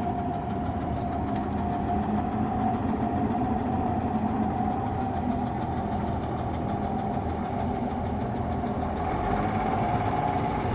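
Combine harvester running steadily while harvesting rice: a constant engine drone with a steady whine over it.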